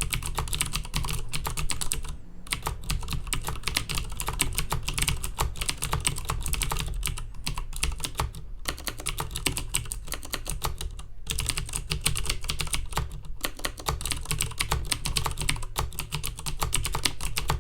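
Fast, steady typing on a Filco Majestouch Minila Air mechanical keyboard with clicky Cherry MX Blue switches: a dense stream of sharp key clicks, broken by a few brief pauses.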